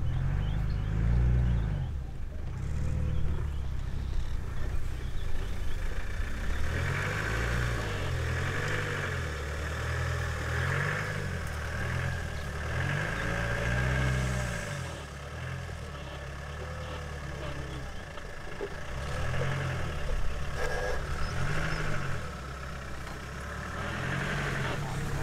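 Lions growling low over a buffalo kill while they feed. The growls come again and again, each rising and falling over about a second.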